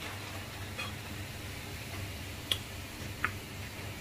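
Three light clinks of kitchenware, about a second apart at irregular spacing, over a low steady hum.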